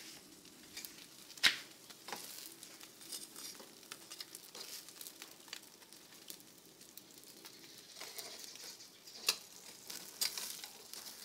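Fish sizzling on a wire grill over glowing charcoal in a clay stove, with a steady crackle. There is a sharp pop about a second and a half in and another near the end.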